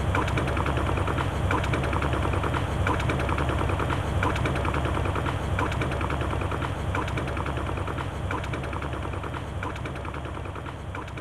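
Passenger train running at speed, heard from inside the carriage: a steady low rumble with a rapid, irregular clatter of clicks, fading away toward the end.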